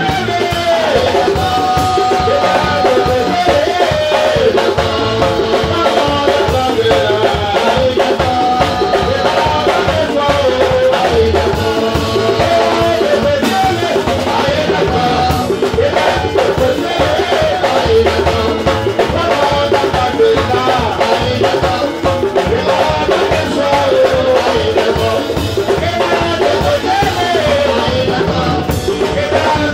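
Live praise singing through microphones and a PA: several voices lead a song over percussion keeping a steady, fast beat.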